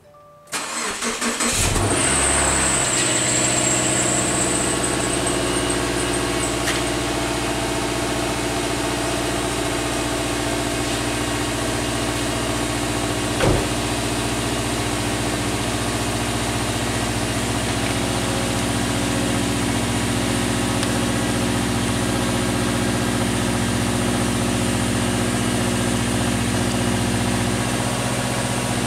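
2015 Subaru Legacy's boxer engine starting at the exhaust tailpipe: a brief crank, catching about a second in, then settling into a steady idle in cold weather. A high whine fades over the first few seconds after it fires, and there is a single sharp click about halfway through.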